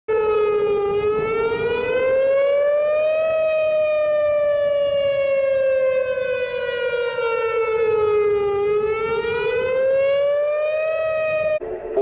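Outdoor tornado warning siren wailing, its pitch rising and falling in slow sweeps of several seconds each, sounding a tornado warning. The wail breaks off abruptly near the end.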